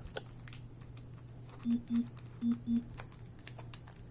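Light tapping and clicking from hands handling a packaged merchandise item being opened, over a steady low hum. About halfway through come four short, even buzzes in two pairs.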